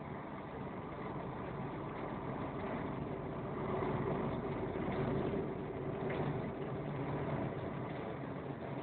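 Steady engine and tyre noise of a vehicle driving on a wet road, heard from inside the cabin, getting a little louder around the middle.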